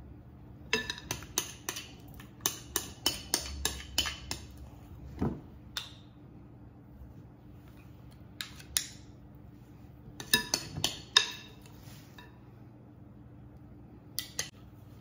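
Two metal spoons clinking against each other and against a glass mixing bowl while batter is scooped and scraped off into paper muffin cups. The clinks come in quick runs with pauses between.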